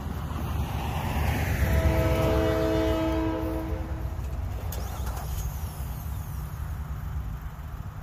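Distant locomotive air horn sounding one long, steady chord about two seconds in, lasting roughly two and a half seconds: the train whistling for the grade crossings as it approaches. Underneath is the low rumble of road traffic, with a vehicle passing early on.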